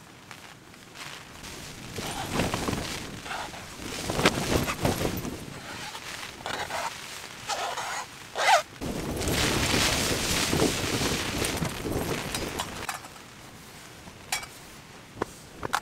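Camp-cooking handling noise: rustling of clothing and gear, with a knife scraping chopped spring onions across a plastic plate and several sharp knocks. It is loudest in the middle and quieter near the end, with a couple of light clinks.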